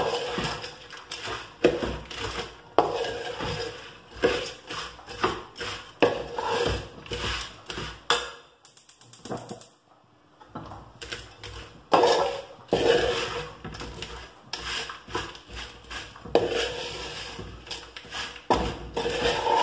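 Flat metal spatula scraping and knocking against a large aluminium uruli while stirring fried sev through thickened sugar syrup until the sugar crystallises on it. The strokes are irregular, the pan gives a ringing note, and there is a pause of about two seconds near the middle.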